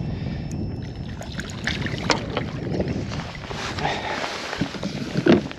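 Wind buffeting the microphone over water lapping against a kayak hull, with scattered light knocks and splashes, and one louder sudden noise near the end.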